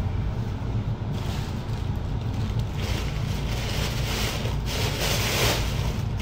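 Thin plastic shopping bag rustling and crinkling as it is handled, heaviest in the second half, over a steady low hum.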